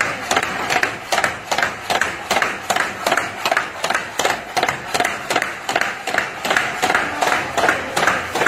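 Scrubbing strokes against a wet metal trough, a quick, even swishing about three strokes a second.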